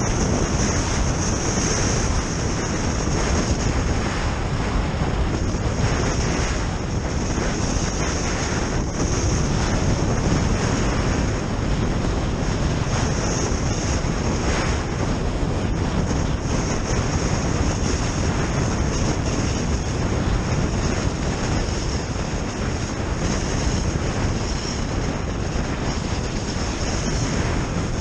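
Wind rushing steadily over an action camera's microphone, with the hiss of skis gliding fast over wind-packed snow.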